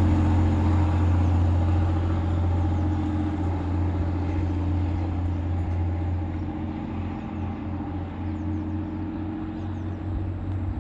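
TransPennine Express Class 185 diesel multiple unit pulling away, its diesel engines running with a steady low drone that slowly fades as the train moves off.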